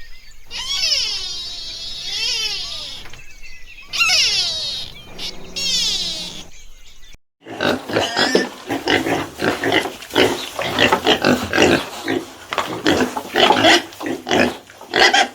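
Animal calls: for about seven seconds, a string of high calls that sweep up and down in pitch, then after a short break a dense run of short, rough grunts and squeals.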